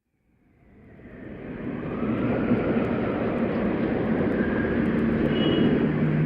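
A steady rumbling, rushing noise that fades in from silence over about two seconds and then holds, like a passing aircraft or train.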